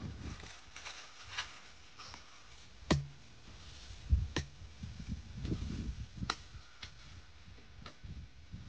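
A hand hoe chopping into soil and a pile of dry straw while digging for earthworms: a few sharp strikes, with a run of dull thuds between them.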